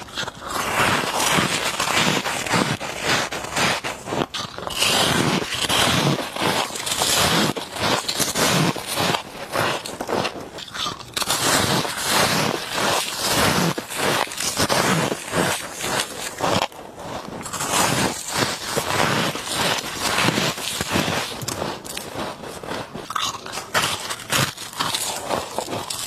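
Freezer frost being bitten and chewed, close-up: dense, irregular crisp crunching with brief pauses between mouthfuls.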